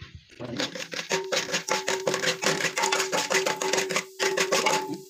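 Metal spoon stirring dry popcorn kernels around an aluminium pot, a fast rattling of kernels and scraping on the pot, with a steady ringing tone underneath from about a second in.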